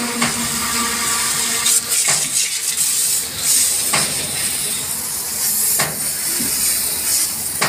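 Water jet from a hose nozzle spraying hard onto a bus's steel chassis, wheel arch and tyre: a loud, steady hiss of spray hitting metal and rubber, with a few short sharp spikes.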